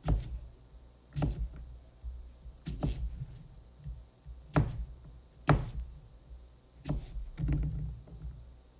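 An 8-inch Damascus steel chef knife slicing through an onion, its blade knocking down onto a cutting board about seven times at uneven intervals of roughly a second, with a slightly longer cut near the end.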